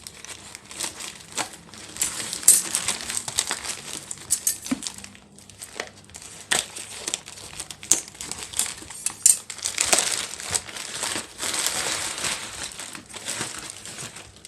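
Plastic packaging, bubble wrap among it, crinkling and crackling irregularly as a parcel is unwrapped by hand, with a short pause about five seconds in.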